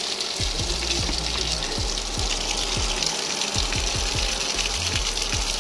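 Water gushing from the outlet of a running DPI double-bore deep-well pump and splashing onto rubble, a steady rushing hiss, with background music with a thudding beat over it.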